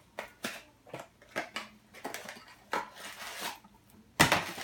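Blind-box packaging and small figures being handled on a table: a run of short crinkles and taps, then one louder burst about four seconds in.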